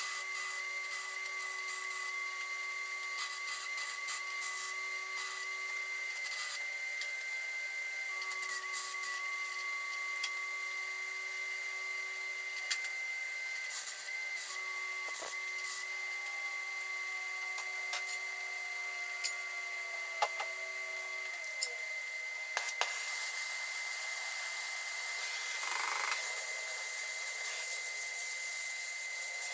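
Electric welder arc welding a muffler onto an exhaust pipe: a steady crackling hiss with scattered sharp pops. A steady high whine runs through it, and a lower hum stops and restarts a few times before dropping out about two-thirds of the way through.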